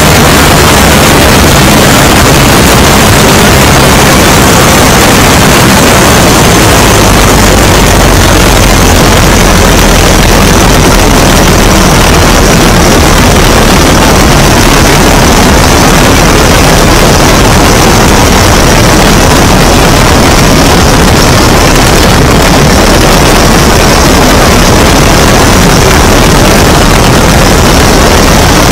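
Great Lakes biplane's piston engine and propeller running steadily in flight. Heavy wind rush on the wing-mounted microphone makes it loud and constant.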